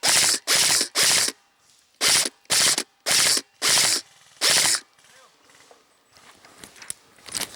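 Airsoft gun firing about eight short automatic bursts in quick succession, each a rapid mechanical rattle about a third of a second long, stopping about five seconds in; faint scattered clicks follow.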